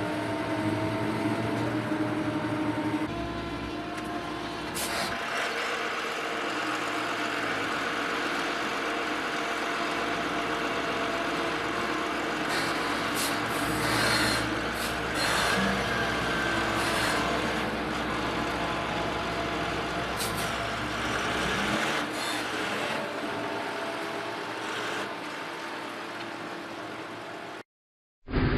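Heavy vehicle or machinery engine running steadily, with several short hisses and knocks along the way; the sound cuts out completely for a moment near the end.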